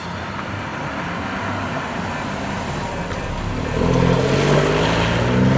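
BMW 1 Series prototype's 1.5-litre three-cylinder twin-turbo engine running with road noise as the car drives. About four seconds in, the engine gets louder and its pitch climbs steadily as it accelerates.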